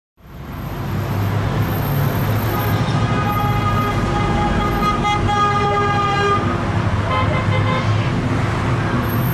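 City street traffic noise fading in quickly, with car horns sounding held tones through the middle few seconds.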